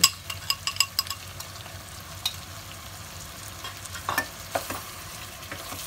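Chicken in a yogurt masala frying in a pan while it is stirred. A spoon clicks sharply against the pan several times in the first second or so, then the low sizzle goes on steadily, with a few more scrapes about four seconds in.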